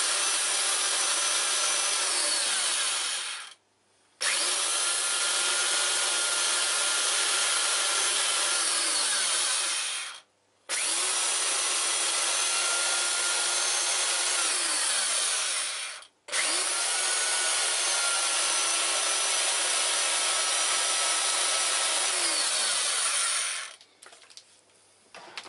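Black+Decker power file, a narrow-belt sander, grinding on a metal bar held in a vice, putting flat spots on it so a drill bit won't slip. It runs in four stretches of about six seconds, the motor winding up at the start of each and winding down at the end, with short pauses between, and stops shortly before the end.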